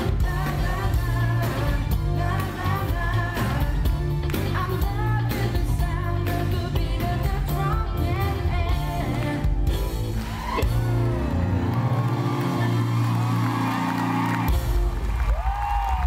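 Live pop music: several male voices singing in harmony over a band with drums and bass. About ten seconds in the drums drop out, leaving held bass and voices. The full band comes back in near the end.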